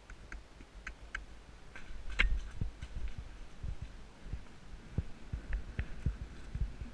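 A horse's hooves thudding dully on a leaf-covered dirt trail, heard from the saddle, with light clicks and a sharp crack about two seconds in; the thumps come closer together in the second half.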